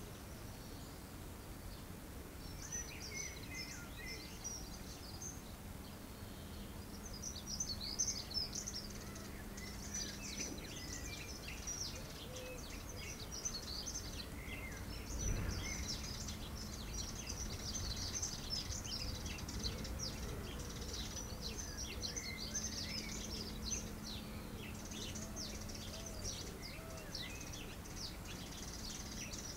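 Several songbirds singing in a near-continuous run of quick, high chirps and trills, over a faint low hum; a single dull thump about halfway through.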